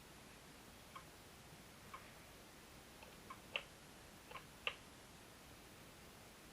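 Near silence with faint scattered clicks, the two sharpest about three and a half and four and a half seconds in.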